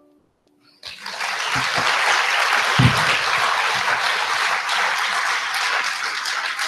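An audience breaks into applause about a second in, after a moment of near silence, with a couple of low thumps among the clapping.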